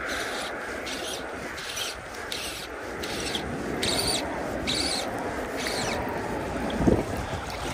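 River water washing and lapping against a drifting boat, in uneven swishes about twice a second, with a single knock about seven seconds in.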